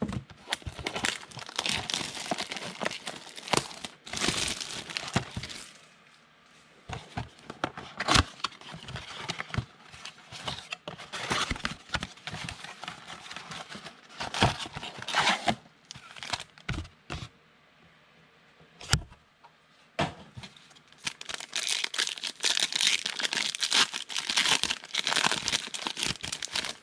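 Cardboard trading-card box for 2019 Absolute Football being handled and pulled open, with rustling and crackling. Near the end it turns to the dense crinkling and tearing of a foil card-pack wrapper being ripped open.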